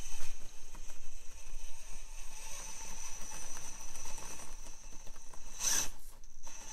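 A micro RC rock crawler's Furitek Micro Komodo brushless motor and drivetrain whirring with a steady high whine as it crawls, its tyres scraping over the rocks. A brief louder scrape comes near the end.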